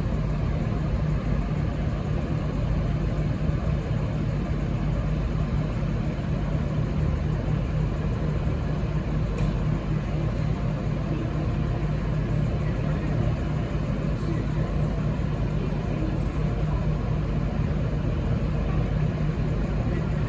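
V/Line VLocity diesel railcar idling at the platform: a steady low engine drone that does not change, with one faint tick about nine seconds in.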